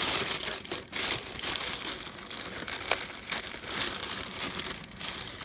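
Tissue packing paper crinkling and rustling irregularly as a hand rummages through it inside a cardboard box.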